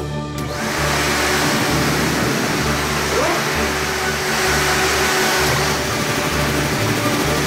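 Cartoon soundtrack: a steady loud rushing noise with low bass notes of background music pulsing underneath.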